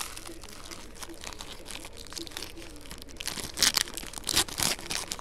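Trading-card packs and cards being handled: wrapper crinkling and tearing and cards rustling in short, sharp strokes, with a cluster of louder crackles around four seconds in.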